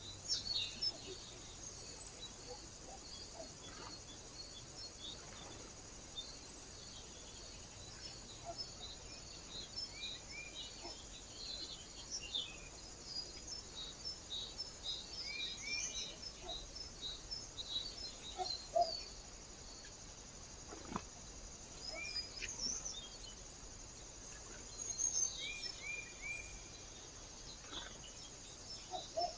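Small birds chirping and calling in repeated quick series of high notes over a steady background hiss, with a faint click about two-thirds of the way through.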